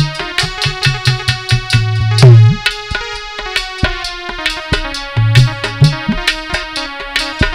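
Instrumental interlude on harmonium and dholak: held harmonium chords over a quick, steady drum beat with repeated deep bass strokes.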